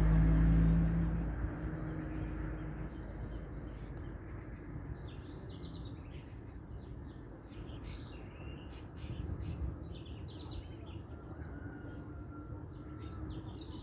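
Many small birds chirping and calling together in a dawn chorus, the short chirps growing busier in the second half. A low rumble fades out over the first couple of seconds.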